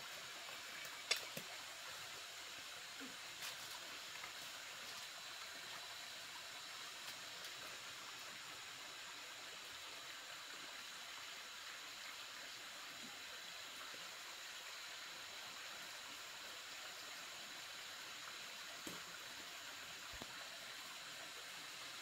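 Steady rush of flowing water from a waterfall, with a sharp knock about a second in and a couple of fainter clicks later.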